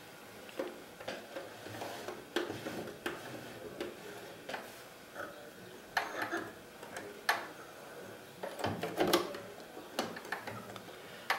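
Scattered small clicks and taps from hands working at the needle and presser-foot area of a Janome Green 19 sewing machine while threading the upper thread, irregular and without the steady run of the machine stitching.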